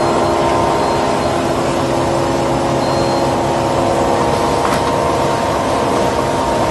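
Automatic bathroom tissue packing machine running: a steady, loud mechanical hum with constant tones, and a single click about two-thirds of the way through.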